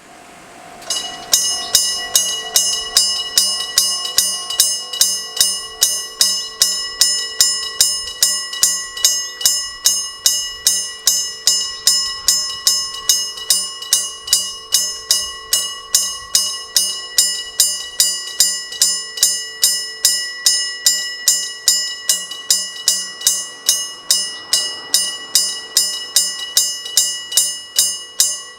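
Electric-bell level-crossing warning bell, a metal gong struck repeatedly by an electric hammer, ringing in a steady beat of about two to three strikes a second. It is the old-style bell crossing signal, now rare, rather than an electronic tone. It starts about a second in.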